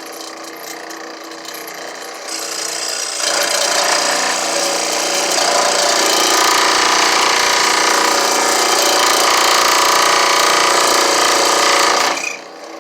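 A power tool running steadily, cutting into stump wood. It gets louder in two steps about two and three seconds in, as if biting into the wood, then stops abruptly near the end.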